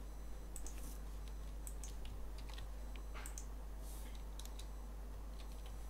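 Faint, irregular keystrokes and clicks on a computer keyboard.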